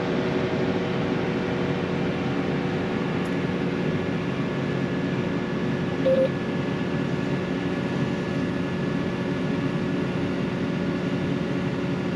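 Harvest machine's engine running steadily, heard from inside the cab, with a short beep about six seconds in.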